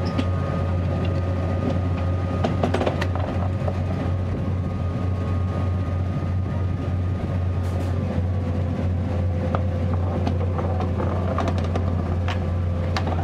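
Vintage Škoda ČS11 narrow-gauge electric locomotive running slowly past at close range: a steady low hum with a thin whine, and scattered clicks and knocks from the wheels and track.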